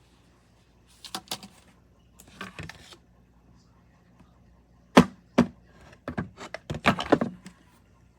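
A series of sharp clicks and knocks in irregular clusters, the loudest a pair about five seconds in, over a faint steady hum.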